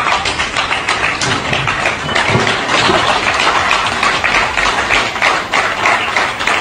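Applause: many people clapping at once, a dense, fast patter of hand claps.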